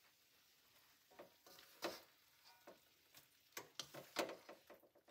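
Faint, irregular taps and scrapes of a serving spoon against the pan and plate as the food is dished out. The sharpest knocks come about two seconds in and again about four seconds in.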